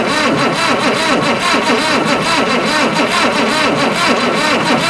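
Oliver 770 industrial tractor's diesel engine cranking over on the starter without firing. The sound rises and falls in a steady rhythm a few times a second, the 'old man laughing sound' that tells the owner it is not going to start.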